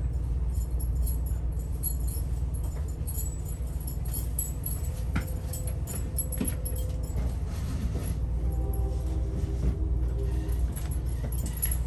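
Inside a moving Amtrak California Zephyr passenger car: a steady low rumble from the running train, with light rattling and jingling of the car's fittings throughout.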